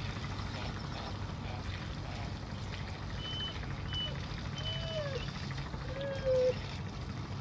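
A steady low mechanical hum, with a few short high chirps midway and two brief rising-and-falling calls near the end.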